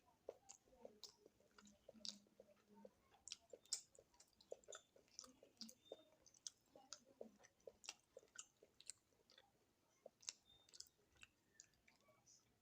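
A person chewing food close to the microphone: soft, wet mouth clicks and smacks coming irregularly, a few a second.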